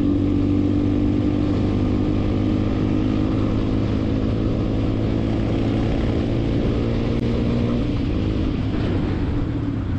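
Motorcycle engine running at a steady cruising speed, heard from the rider's seat with wind rushing past; the engine note eases slightly near the end.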